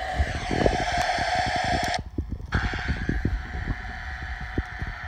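Receiver static hiss from a CB radio's speaker, with many soft low thumps. About two seconds in the audio cuts out for half a second and returns with a different hiss as the receiver is switched from FM to AM.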